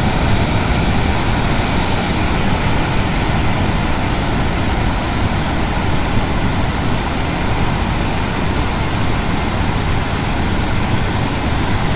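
Water rushing through a dam's spillway, a steady loud rush.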